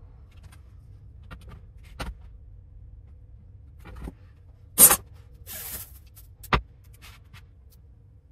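Workbench handling noise as a steel ruler and pencil are laid on and moved across a sheet: light clicks and taps, one loud sharp knock about five seconds in, a short rasp just after it, and another sharp knock a moment later.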